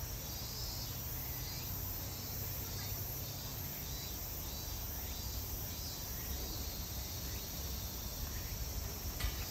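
Steady outdoor background: faint insect chirping over a low rumble, with a single sharp click near the end.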